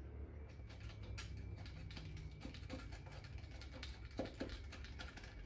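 Glued-in foam being cut with a utility knife and torn away from a boat seat's rotted wooden base: faint scattered scratching and small clicks over a low steady hum.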